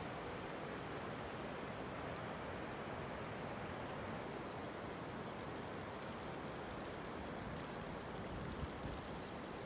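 Mountain stream rushing steadily, with two faint bumps near the end.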